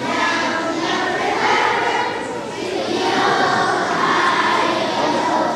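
A group of young children singing together as a choir.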